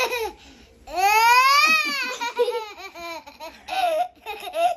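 A young girl laughing. About a second in comes one long high-pitched laugh that rises and then falls, followed by shorter bursts of laughter.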